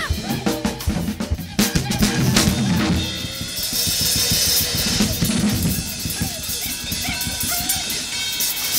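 Experimental rock music with rapid, dense percussion hits, and sustained instrumental tones layered above from about three seconds in.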